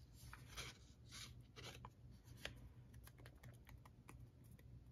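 Faint handling of cardstock: soft rustles and rubs of two paper circles being pressed and shifted between the fingers, with scattered light ticks.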